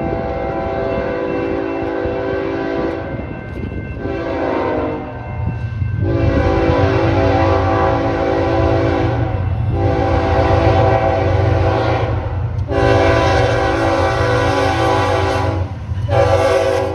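BNSF freight diesel locomotive's multi-note air horn sounding a sequence of blasts as it approaches a grade crossing: mostly long blasts with short ones about four seconds in and at the end. The locomotives' diesel engine rumble grows beneath the horn from about five seconds in.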